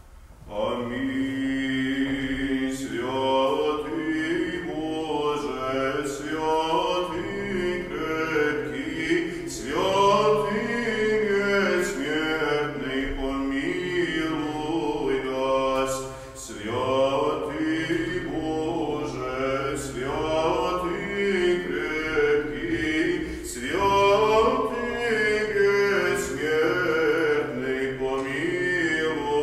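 Male cantors singing Byzantine chant unaccompanied, a winding melody in long phrases over a steady low held drone (ison).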